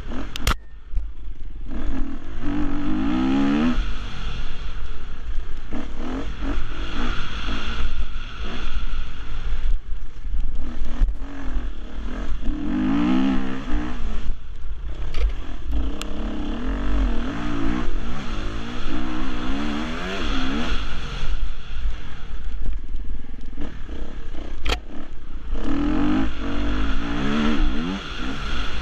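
Husqvarna enduro motorcycle engine revving hard and easing off again and again as the bike is ridden over a dirt trail, its pitch climbing and falling every few seconds, over a steady low rumble. A few sharp clicks stand out, one near the start and two more later on.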